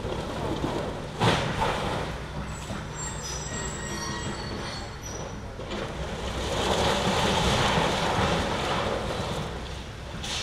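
Demolition excavator working on a concrete building, its engine running steadily underneath. There is a sharp bang about a second in, then a few seconds of high metallic squealing, then a louder rough stretch of demolition noise.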